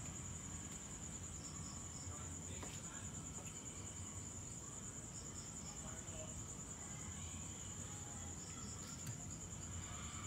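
Crickets trilling steadily in a continuous, finely pulsing high note over a low background hum.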